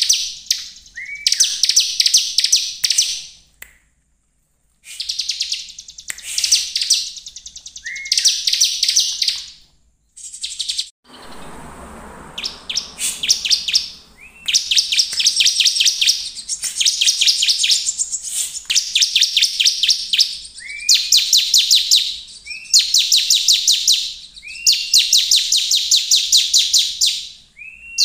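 Bar-winged prinia (ciblek) in full song: phrase after phrase, each opening with a short upslurred note and running into a fast, rattling trill of high notes, repeated every second or two. A pause about four seconds in, and a short rustling noise about eleven seconds in.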